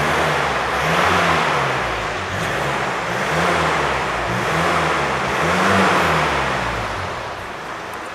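Mercedes A200d four-cylinder diesel revved repeatedly through its standard exhaust, the engine note rising and falling about five times. This is the stock exhaust line with particulate filter and no Active Sound speaker, measuring about 68 to 70 decibels.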